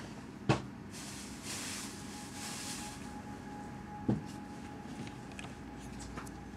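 Two sharp knocks, about three and a half seconds apart, over a steady faint hum, with soft rustling between them.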